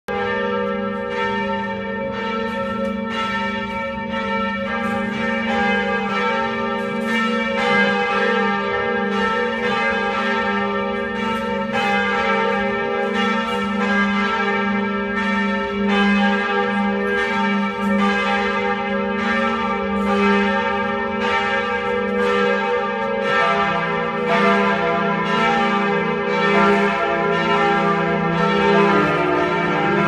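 Notre-Dame de Paris cathedral bells ringing together in a full peal: overlapping strikes about once a second over long, lingering tones. A deeper bell joins about three-quarters of the way through.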